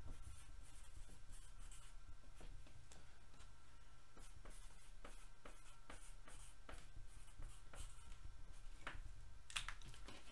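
Faint, scattered light clicks and rubs from hands at a desk, over a steady low hum.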